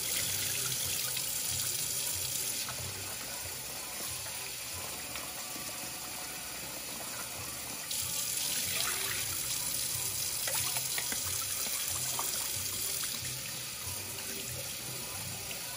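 Kitchen faucet running into a sink while rice is rinsed in a bowl, with the cloudy rinse water tipped out and splashing into the sink.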